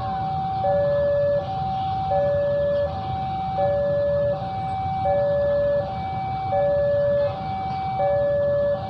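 Railway level-crossing alarm sounding: an electronic two-tone warning that alternates evenly between a higher and a lower tone, each held for about three quarters of a second, over a low steady rumble.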